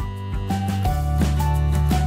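Instrumental background music: held notes over a steady bass line.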